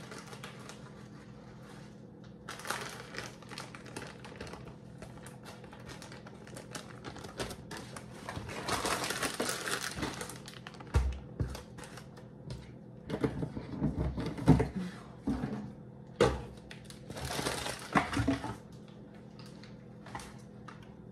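Plastic shredded-cheese bag crinkling and rustling as it is shaken out and crumpled, with scattered clicks. A longer burst of crumpling comes about halfway through, followed by several dull knocks of things set down on the counter.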